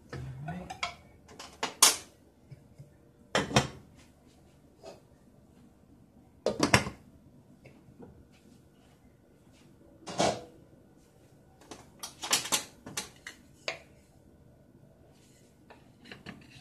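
Pot lids and cookware clinking and knocking at the stovetop, with a glass pot lid set onto a pot: a handful of separate sharp clatters with quieter knocks between them.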